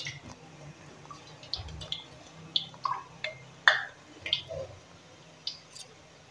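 A metal spoon scraping and clicking on a perforated slotted ladle as gram-flour boondi batter is pushed through it, the drops falling into hot frying oil. The result is a string of irregular short clicks and drips, the sharpest a little past halfway.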